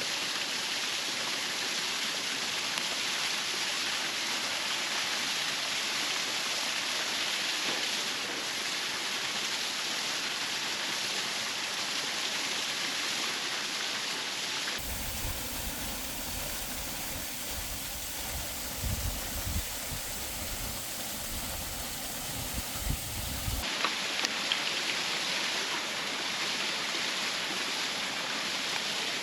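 Steady rushing of a waterfall. About halfway through, a stretch of several seconds is overlaid by low uneven rumbling with a few sharp knocks, which then cuts back to the plain rush of water.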